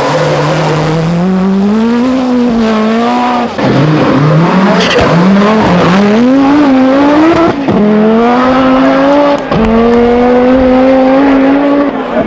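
Group B rally car engine at full throttle, its pitch climbing through each gear and dropping sharply at every upshift, four or five shifts in a row with a couple of short bursts in between.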